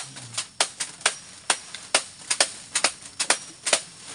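Machetes hacking through bundles of odot (dwarf elephant grass) stalks held in the hand, a quick irregular run of sharp chops, about three or four a second from two people cutting at once. This is forage being chopped by hand for silage in place of a chopper machine.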